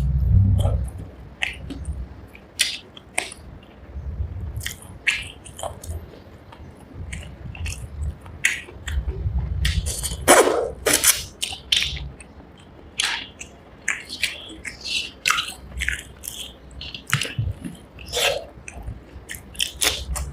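Close-miked eating of rice and fish curry: wet chewing and biting with many short lip smacks and clicks, and soft low thuds coming and going.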